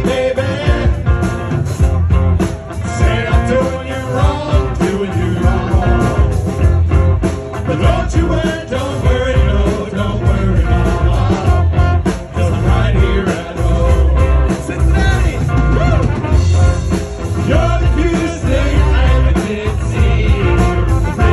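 Live German-style beer-hall band playing through a PA, with accordion, saxophone, electric guitar and drums under men singing into microphones, over a steady beat.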